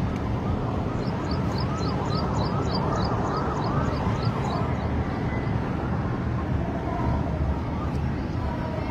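Steady vehicle and road rumble, with a rapidly wavering siren, rising and falling several times a second, from about one to five seconds in.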